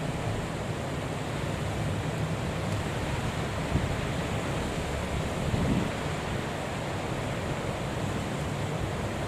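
Wind buffeting the microphone with a low, uneven rumble, over a steady wash of rough sea.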